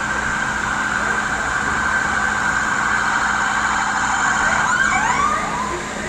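Heavy rain hissing steadily, with an emergency vehicle's siren sounding through it; its short rising sweeps stand out near the end.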